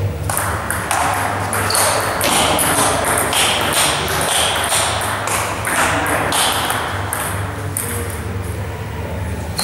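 Table tennis rally: the celluloid ball clicks off the bats and the table in quick succession, several hits a second, with a hall echo after each.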